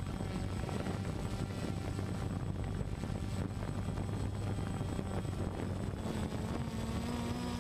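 Quadcopter drone's motors and propellers whirring steadily in hover, heard close from the drone's own camera, with a tone that rises slightly near the end.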